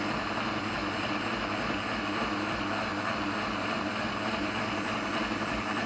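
Instant Pot Ace cooking blender running on its low blend setting, its blades churning a jar of hot soup. A steady motor sound that holds even throughout.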